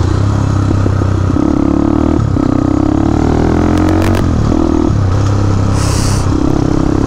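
Motorcycle engine running under way, its pitch rising as the rider accelerates, with brief drops about two and four seconds in as he shifts gear.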